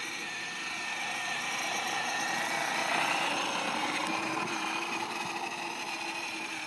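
Battery-powered toy ride-on ATV driving on asphalt: a steady whine from its electric motor and gearbox over the rumble of hard plastic wheels, growing louder around the middle.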